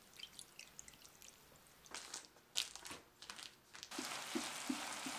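Dark bulgogi marinade poured onto sliced raw beef in a bowl, with small wet ticks and splashes. About four seconds in, thinly sliced marinated beef starts sizzling loudly in a hot frying pan as it is stir-fried, with light regular knocks about three times a second.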